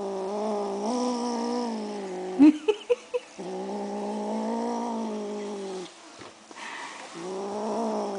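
Kitten growling over raw chicken, guarding the meat: three long, steady growls of about two and a half seconds each, with brief chewing clicks in the gaps.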